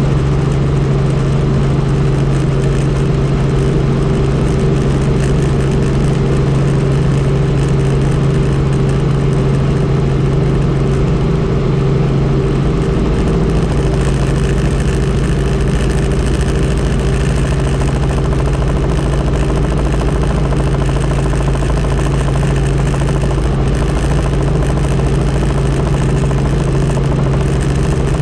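Helicopter in flight: a steady engine and rotor drone with a strong low hum that holds an even pitch.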